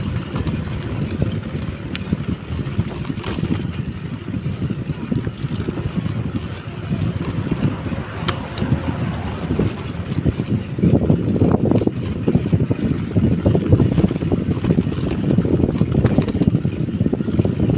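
Wind rushing over the microphone of a BMX bike being ridden along a rough road, mixed with tyre noise from the road. The rush grows louder about eleven seconds in.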